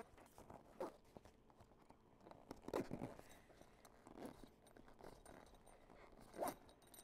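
Faint rustling and scraping of a privacy tent's fabric travel cover as it is pulled closed and fastened on a roof rack: a few short rustles, the loudest about three seconds in and another near the end.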